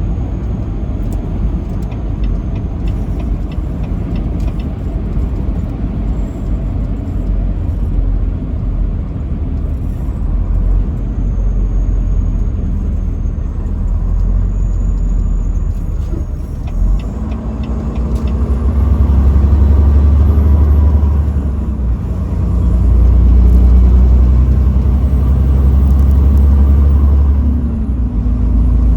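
Semi-truck running down the highway: a steady engine drone with road noise. The engine grows louder and deeper about two-thirds of the way through, eases briefly, then swells again.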